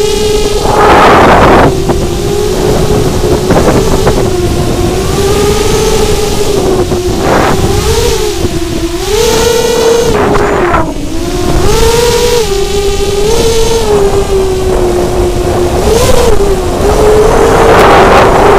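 Motors and propellers of an ImmersionRC Vortex FPV racing quadcopter whining in flight, as heard by its onboard camera. The pitch wavers up and down with the throttle, and several loud rushes of wind noise hit the microphone.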